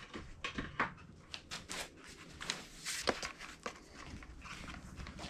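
Scattered light clicks and knocks of tools being handled and picked up at a workbench, with no motor running.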